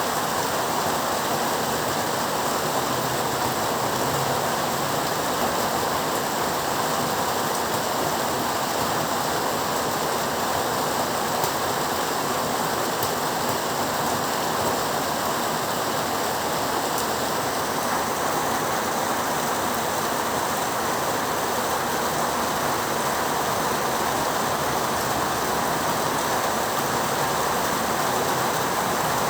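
Heavy rain falling steadily, a dense, even hiss with no breaks or thunder.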